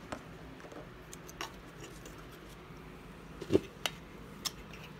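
Quiet room tone with a few light clicks and taps of small objects being handled on a desk. The loudest tap comes about three and a half seconds in.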